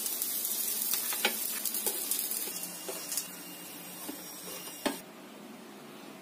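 Oil sizzling in a frying pan around stuffed chapathi rolls as they are lifted out with a metal spatula, with a few clicks of the spatula against the pan. The sizzling cuts off about five seconds in.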